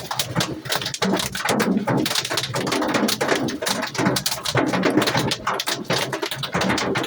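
Hail pelting down in a heavy storm: a dense, loud, irregular clatter of countless hailstones striking hard surfaces.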